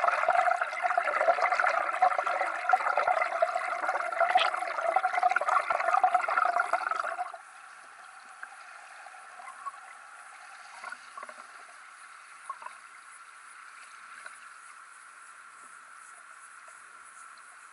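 Water rushing and gurgling as picked up by an underwater camera in its housing, muffled and without any low end. About seven seconds in it drops suddenly to a faint steady hum with a few soft ticks.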